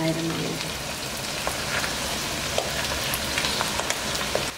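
Stir-fried vegetables and chicken sizzling steadily in a hot, thin kadhai over a high flame, with scattered light ticks as boiled rice is tipped in from a steel bowl.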